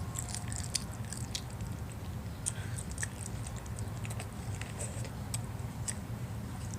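A child chewing and eating ramen noodles: many small, irregular wet mouth clicks over a steady low hum.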